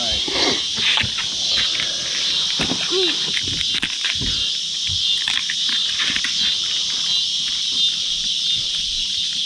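A steady, high-pitched chorus of insects, with a few light clicks and knocks over it.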